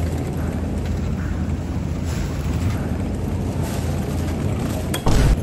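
Electric mobility scooter running, a steady low hum and rumble from its motor and wheels rolling on a hard floor. Near the end a much louder low rumble starts abruptly.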